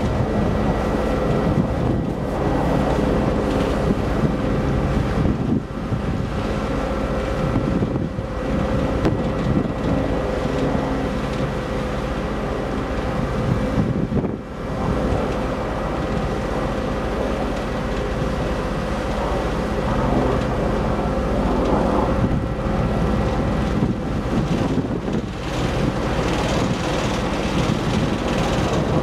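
Car ferry's engines and propellers running steadily underway: a constant drone with a steady hum through it, with wind buffeting the microphone.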